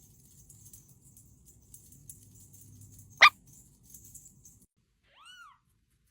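Small pet animal calls over faint background noise: one sharp, very short yelp about three seconds in, the loudest sound, and near the end a short high call that rises and falls in pitch.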